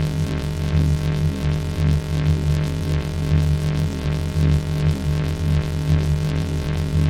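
Loud synthesized electronic noise: a heavy low buzzing drone made of many steady tones, pulsing rapidly and evenly throughout.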